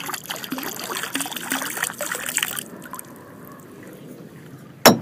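Canal water pouring and gurgling out of a glass beer bottle for about two and a half seconds. A single sharp knock near the end.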